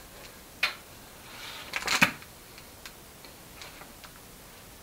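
Motorcycle roller chain (EK 530 drag-race chain, greased) clinking as it is handled and let drop: a few scattered metallic clicks, the loudest cluster about two seconds in, then lighter ticks.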